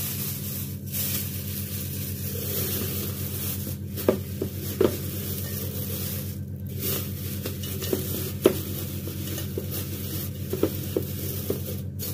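Kitchen handling sounds: food being stirred and handled in a bowl, with a few light clicks. A steady low hum runs under it.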